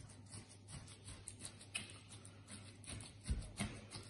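Gloved hands pressing and working a pile of minced pork sausage mix with salt and dried onion: faint, irregular soft pats and squelches, with two louder thumps a little past three seconds in, over a steady low hum.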